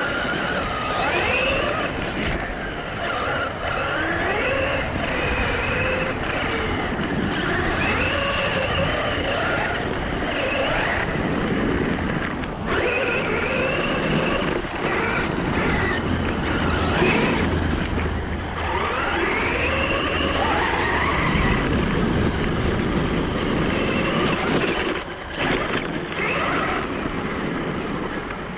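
Brushless electric RC car motor whining up and down in pitch as the throttle is worked, over steady rumbling noise from the truck driving on dirt.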